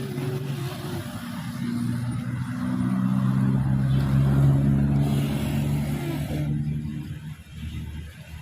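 A bus's Basuri multi-tone 'telolet' horn sounding a run of held notes that step from pitch to pitch, over the noise of the passing bus. It cuts off about seven and a half seconds in.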